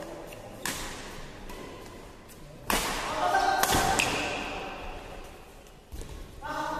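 Badminton rackets striking the shuttlecock in a fast doubles rally: about five sharp smacks, the loudest two around three and four seconds in, each ringing on in a large hall.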